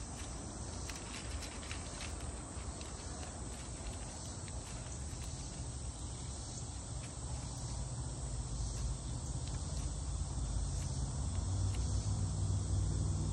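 Steady chirring of night insects, with light rustling and clicks in the leaf litter during the first couple of seconds and a low rumble that grows louder in the last few seconds.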